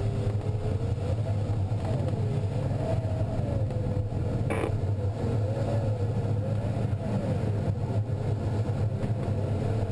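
Airflow noise in the cockpit of an ASW-19B glider in fast flight, a steady low rush, with the variometer's thin electronic tone wavering up and down in pitch. A single sharp click comes about four and a half seconds in.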